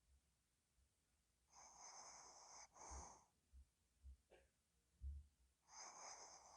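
Sleeping Pomeranian snoring: two slow breaths about four seconds apart, each a high, whistling wheeze followed by a shorter, softer puff. A few soft low thumps fall between them.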